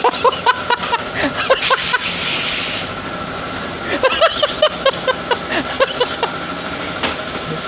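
A short pressurised hiss lasting about a second, starting about one and a half seconds in, over indistinct voices and light workshop clatter.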